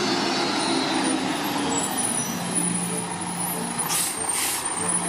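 Rear-loader garbage truck's diesel engine running as the truck moves along the street, with short hisses of air from its air brakes about four seconds in.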